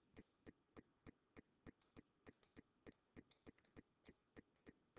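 Near silence with faint, regular ticking, about three ticks a second, and a few sharper clicks mixed in during the middle.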